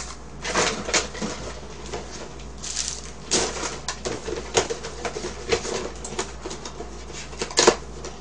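Cake packaging being unwrapped by hand: short bursts of crinkling and rustling of plastic and cardboard, with scattered light taps and clicks.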